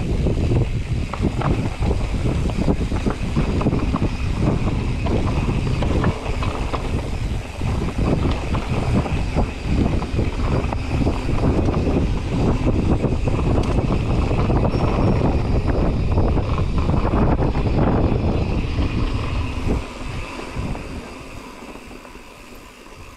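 Mountain bike rolling fast down a dirt forest trail: a steady low rumble of tyres over the ground with constant rattling and knocks from the bike. It turns quieter over the last few seconds as the bike comes out onto a wider, smoother dirt track.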